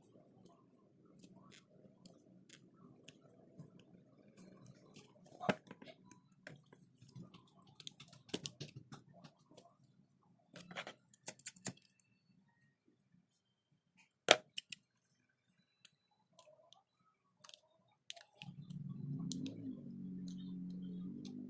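Small hand tools clicking and tapping on a phone's parts, in scattered irregular clicks, with one sharp louder click about two-thirds of the way through. A steady low hum starts near the end.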